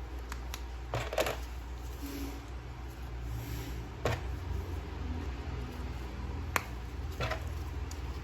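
Handling of a plastic toy action figure and its packaging: a few scattered clicks and light scrapes, over a steady low hum.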